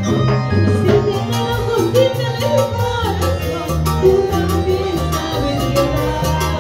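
Live band music: a woman singing through a microphone over electric bass and a steady dance beat.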